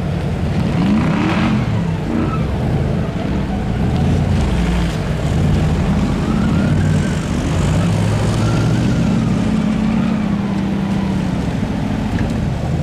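Off-road vehicle engine running under load, its revs repeatedly rising and falling.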